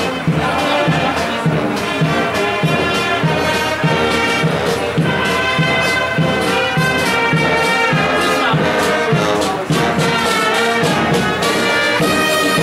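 Fanfare corps playing a march: brass fanfare trumpets sounding held melody notes over a steady marching drum beat.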